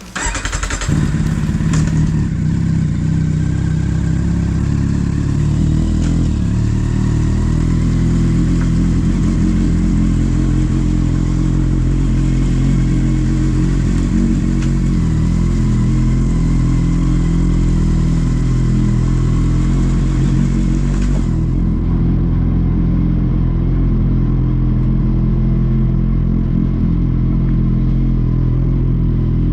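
Kawasaki Z800 inline-four engine running steadily, with a rushing hiss over it that drops away suddenly about 21 seconds in.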